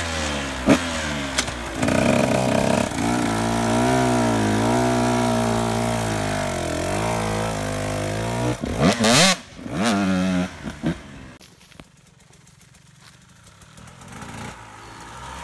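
KTM 125 two-stroke dirt bike with an FMF exhaust, ridden around a track. The engine pitch rises and falls with the throttle, with two sharp revs about nine and ten seconds in. The engine then drops to a faint sound for a few seconds before rising again near the end.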